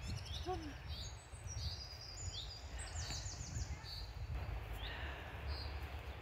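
Small birds calling, with many short high chirps and a quick run of repeated notes about three seconds in, over a steady low rumble.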